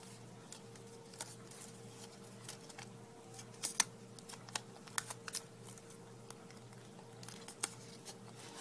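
Origami paper crinkling and crackling as it is folded and opened out by hand: scattered small sharp clicks, the loudest about four seconds in, over a faint steady hum.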